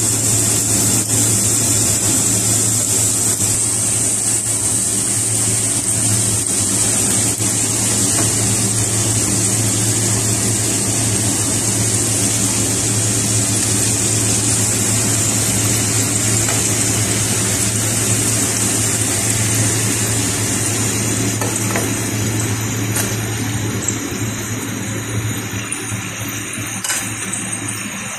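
Stuffed pastries frying in hot oil in a pan: a steady bubbling sizzle that slowly eases off near the end, over a steady low hum.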